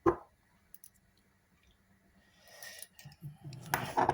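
Lock picking tools working in a padlock: a sharp knock right at the start, a few light ticks, then a cluster of rattling clicks near the end.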